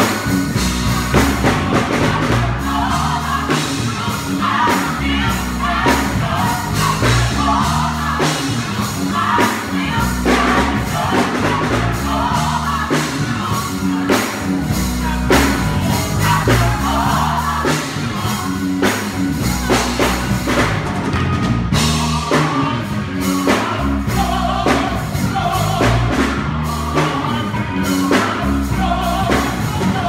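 Gospel choir singing over instrumental backing with a steady beat and bass.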